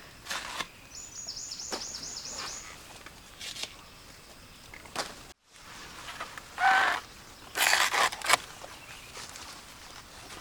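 Rural outdoor ambience: a small bird gives a rapid, high-pitched trill of repeated chirps, among scattered footsteps and rustling. About two-thirds of the way through come a few loud, sharp rustling noises.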